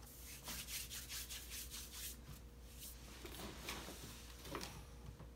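Guinea pig crunching and chewing a treat: a quick run of soft, crisp crunches, about five a second, for the first two seconds or so, then a few scattered ones.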